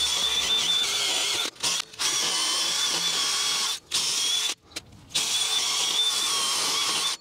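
DeWalt drill spinning a small wire wheel against the rusty face of a wheel hub, a steady high whine with a scratchy scouring hiss as it wire-brushes off rust. It stops and starts again several times.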